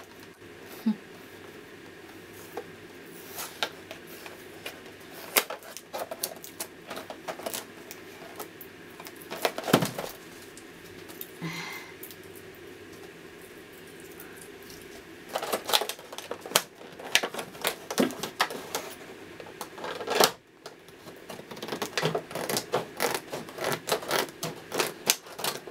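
Hard plastic blister packaging and cardboard of a toy box being handled and pulled at: irregular crackles and clicks, sparse at first and coming thick and fast in the last ten seconds.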